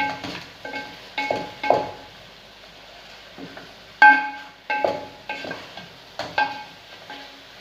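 A metal spoon stirring chicken adobo in a metal pot, knocking against the pot with ringing clanks: a run of knocks in the first two seconds, a pause, then another run from about four seconds in.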